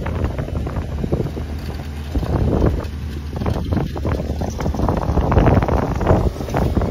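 A BMW X5 SUV's engine running as it is driven in an attempt to get out of deep sand where it is stuck. Strong wind buffets the microphone, surging and rumbling over it.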